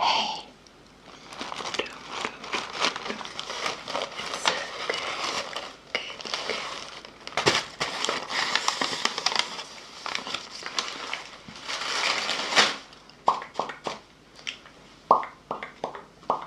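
Close-up ASMR mouth sounds: dense wet crackling and clicking, then a run of separate sharp pops and smacks near the end.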